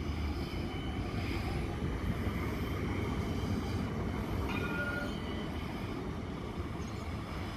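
Parramatta Light Rail tram passing close by, its wheels rolling on the rails, loudest a few seconds in and then easing as it moves away. A faint brief whine comes near the middle.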